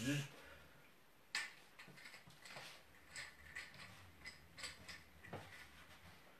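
Faint, scattered clicks and taps as someone moves about swinging a light-up toy lightsaber. The sharpest click comes about a second and a half in, with smaller ones following irregularly.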